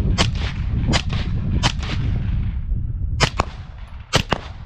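Suppressed semi-automatic fire from a CZ Bren 2 rifle in 5.56 with a Rugged 5.56 suppressor. There are seven shots at uneven spacing, the last four in two quick pairs, each trailing off in an echo over a steady low rumble.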